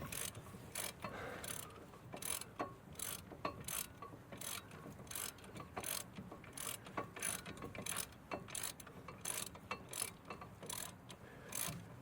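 Hand ratchet with a 21 mm socket clicking steadily in short, sharp clicks a few tenths of a second apart while a brake caliper bracket bolt is run in.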